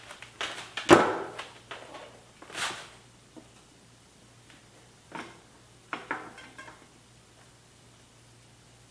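Metal clicks and knocks as a knife is slid in between a hydraulic disc brake caliper's pads to spread them apart, the loudest knock about a second in, a few lighter clicks after, then still after about seven seconds.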